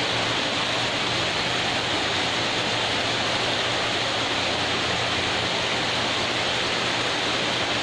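Water from a garden fountain splashing steadily into a pond, an even rushing hiss with a faint low hum underneath.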